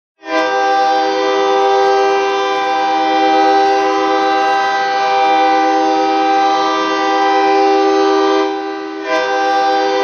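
Worcester Railers hockey goal horn blasting: a loud, steady chord of several horn tones that sounds out almost at once, dips briefly near the end and comes back in full.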